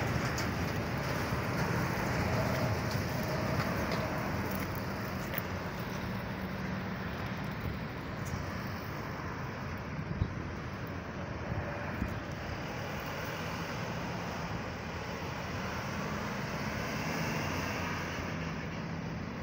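Diesel engines of fire engines and a city bus driving through an intersection in a slow convoy: a steady low engine drone with tyre and road noise, and no sirens.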